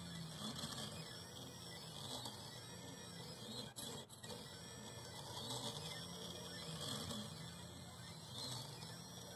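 AxiDraw MiniKit pen plotter's stepper motors whining as the pen carriage traces curves. The pitch rises and falls in repeated arcs about every second and a half. About four seconds in there is a brief pause with a couple of clicks.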